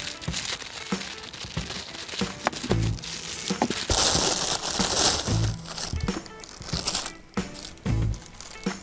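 A thin clear plastic bag crinkling as hands work it open, with a loud rip as it is pulled apart about four seconds in. Background music plays underneath.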